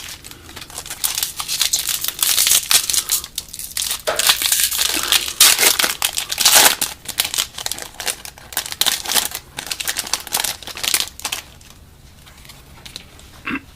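Trading card pack wrapper being torn open and crinkled by hand, in irregular crackly bursts that ease off near the end.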